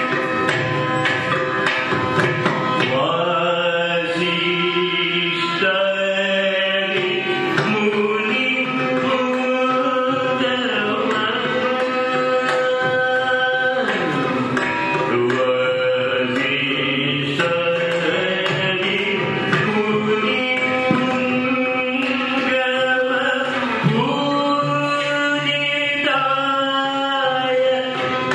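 Carnatic classical music: a melodic line holds notes and slides between them with ornamental glides, over hand-drum strokes that are busiest in the first few seconds.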